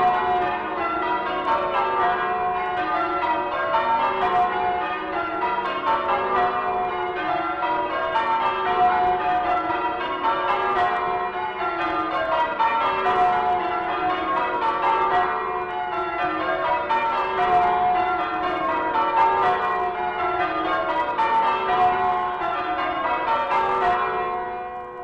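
A ring of church bells pealing in change ringing, the bells struck one after another in a steady, repeating sequence of different pitches. The peal fades out near the end.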